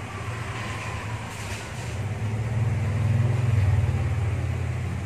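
Low engine rumble of a vehicle, swelling to its loudest a little past halfway, then easing off.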